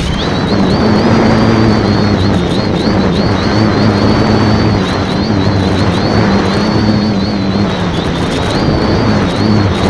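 Electric motors and propellers of the X550AIOP multirotor, heard through its onboard keychain camera. They buzz and whine steadily, the pitch wavering up and down as the throttle is corrected in flight.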